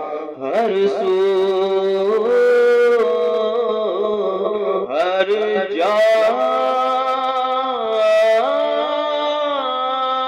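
Background music: a male voice singing long held notes that slide between pitches, in a chant-like style.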